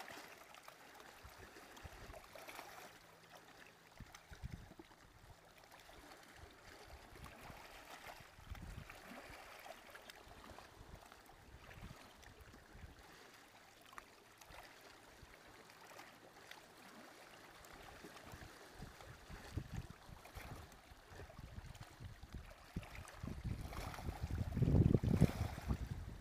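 Small waves lapping and splashing softly against a rocky shoreline, coming and going every few seconds. In the last few seconds gusts of wind hit the microphone as loud, low rumbles.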